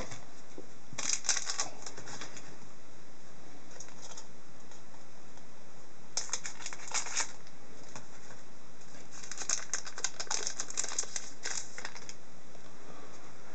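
Trading-card pack wrapper crinkling and cards being handled, in three bouts of quick crackling: about a second in, in the middle, and a longer bout near the end.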